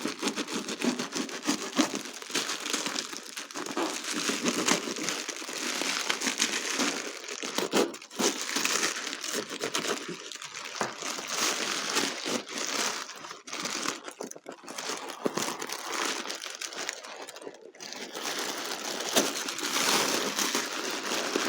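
Paper packing being crumpled and torn off while a wrapped crystal is unpacked by hand, a continuous crinkling with many small crackles.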